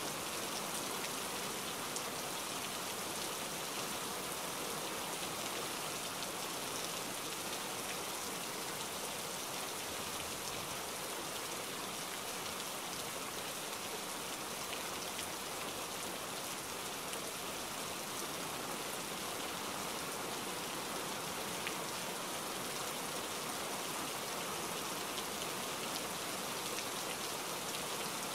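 Steady rain, an even hiss of falling rain that keeps up without a break.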